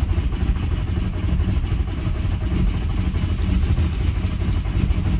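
Starter cranking a four-cylinder VW ALH 1.9 TDI diesel, heard from inside the car's cabin: a steady, rhythmic turning-over. This is a no-glow-plug start attempt, and the engine has not yet caught and run on its own; the owner thinks it needs more throttle.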